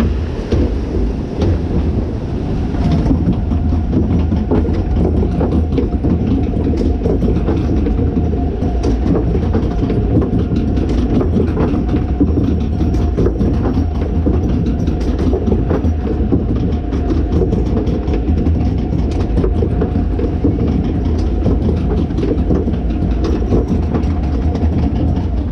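Amusement ride vehicle running along its track: a steady loud mechanical rumble with a constant hum and many scattered clicks and clacks.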